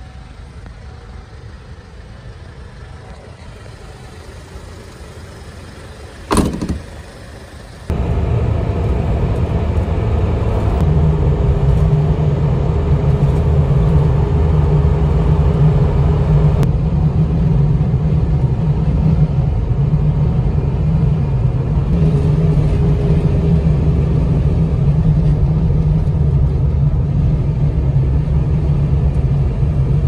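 Motor vehicle engine running steadily, a low hum. A single sharp knock comes about six seconds in, and about two seconds later the engine sound jumps suddenly louder and holds steady.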